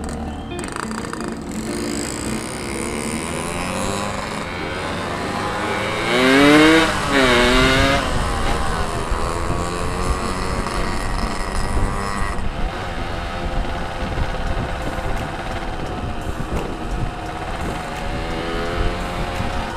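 Yamaha RX-King two-stroke motorcycle engine heard from the rider's seat while cruising, with wind noise on the microphone. About six seconds in the engine revs up sharply, drops back and rises again, the loudest moment.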